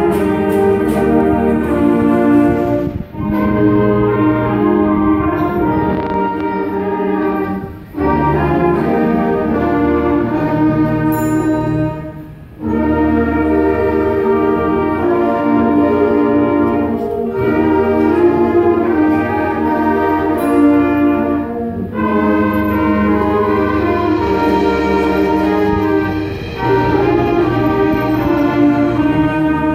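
Concert wind band with clarinets playing a slow piece in sustained chords, phrase after phrase with short breaks between them.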